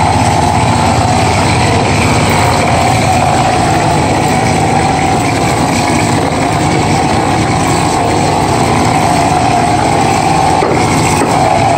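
Stucco pump running steadily, pushing mortar through the hose to a spray gun, with a steady hiss as the scratch coat is shot onto a concrete block wall.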